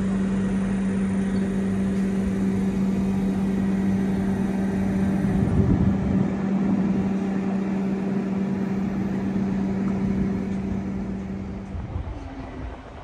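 Adelaide Metro 3000 class diesel railcar idling at the platform: a steady engine hum with one strong pitch, fading away near the end.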